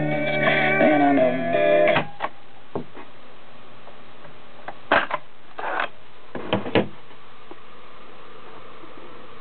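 A song with guitar plays from a Sanyo M-9600 boombox's speaker and stops with a click about two seconds in. Several sharp mechanical clicks and clunks from the boombox's piano-key buttons and cassette mechanism follow.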